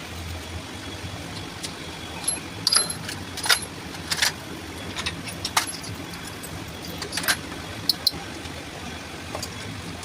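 Small metal parts and tools clinking and tapping against each other at irregular intervals, about a dozen sharp clinks, over a steady low hum.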